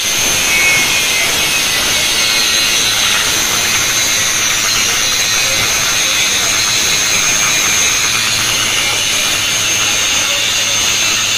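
Handheld electric angle grinder with an abrasive cut-off disc cutting through steel rebar: a steady high whine over a harsh grinding hiss.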